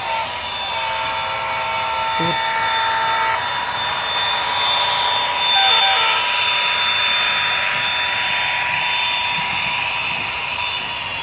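Model freight train passing close by: the model diesel locomotives' electric motors give a steady whine, and the wheels and cars rumble along the track. The rush swells as the locomotive goes past, a few seconds in. A chord of several held tones sounds during the first three seconds.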